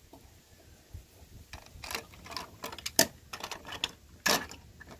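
Plastic toys being handled on a wooden table: an irregular run of clicks, taps and clatter starting about a second and a half in, with the sharpest knocks about three seconds and four seconds in.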